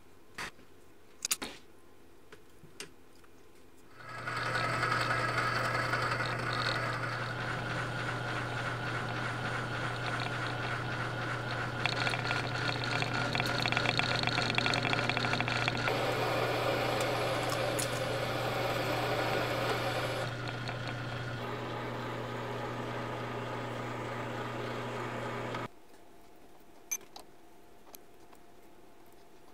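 Metal lathe running with a steady hum from about four seconds in, with scraping noise from a hand tool held against the spinning steel part, louder for a stretch mid-way; the lathe stops near the end. A few light clicks of handling metal parts come before and after it.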